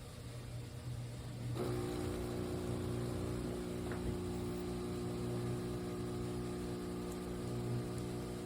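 Espresso machine's 20-bar pump running with a steady buzzing hum. A lower hum carries on throughout, and the fuller pump sound starts up again about a second and a half in.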